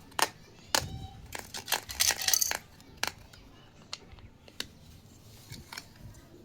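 Small plastic pieces of a toy kitchen set being handled, with sharp clicks and a short burst of crinkling plastic packaging about two seconds in, then a few scattered clicks.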